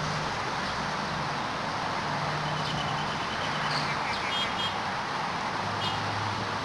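Steady outdoor background noise with a low, engine-like hum that drops in pitch near the end, and a few short, high chirps at about two and a half, four and a half and six seconds in.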